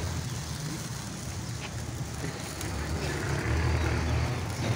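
A steady low rumble, growing somewhat louder in the last second or two.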